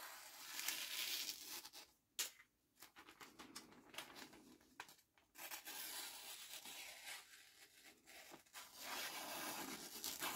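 Kitchen knife, freshly sharpened, slicing through a sheet of thin flyer paper in a paper-cutting sharpness test: several long hissing cuts separated by short pauses, with paper rustling and a few sharp crackles.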